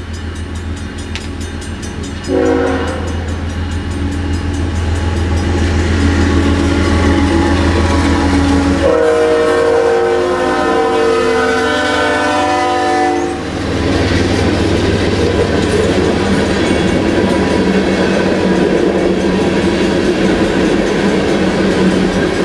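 CN ES44AC diesel locomotive drones as it approaches, its air horn sounding briefly about two seconds in and then a long blast of about four seconds starting near nine seconds. Freight cars then rumble past, steel wheels clacking over the rail joints.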